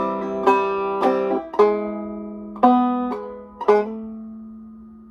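Open-back banjo played clawhammer style, tuned a full step down: plucked notes and brushed strums, slowing over the first few seconds. It ends on a note left to ring and fade away.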